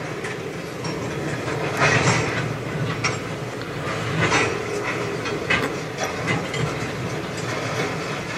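Train of tank cars rolling slowly past as it gets going again, the wheels rumbling over the rails with irregular metallic clanks. Heard from inside a van.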